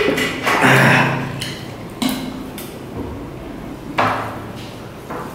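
Drinking from a plastic water bottle, with a loud swallow about a second in, then sharp knocks on a glass tabletop, one near the start and another about four seconds in as the bottle is set down.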